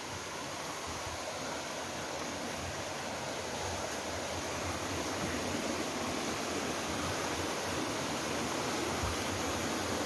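Shallow creek water running over rocks, a steady rushing hiss that grows gradually louder.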